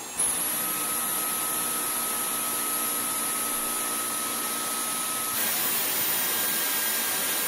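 Dyson V11 cordless stick vacuum's motor starting up and running steadily with a high whine. About five seconds in it steps up in pitch and gets a little louder as it is switched into boost, its highest suction mode.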